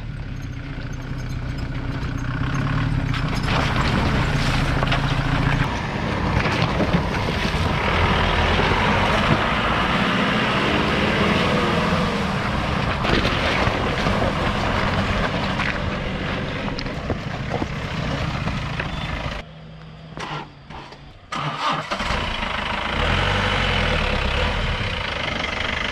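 Old-model Mahindra Thar's diesel engine running as the jeep crawls through a muddy, water-filled rut. The sound drops away briefly about three-quarters of the way through, then the engine is heard again.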